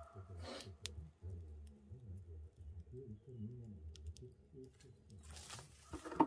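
Brushwood fire crackling in the firebox of a traditional wood-burning stove under an iron cauldron, with scattered sharp pops over a low rumble. Near the end comes a brief rustle of dry branches and one loud snap.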